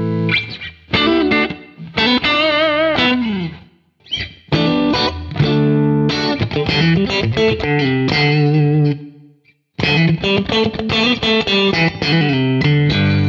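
Electric guitar played through the Quad Cortex's Jewel compressor set to full compression and full mix ahead of a clean amp model, giving a squashed, snappy country 'spank' tone. The phrases are short picked notes, with a held note with vibrato about two seconds in and brief breaks near four and nine and a half seconds.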